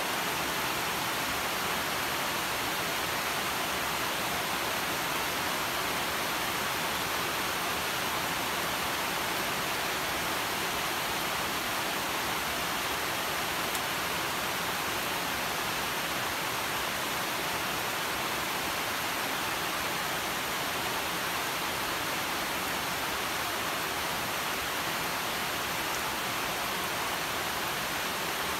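Steady rain falling on leaves, an even hiss with no single drops or thunder standing out.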